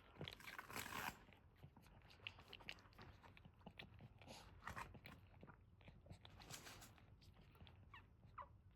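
Boston terrier mother licking and nuzzling her newborn puppies: faint, irregular wet licking and chewing clicks, with a few short high squeaks near the end.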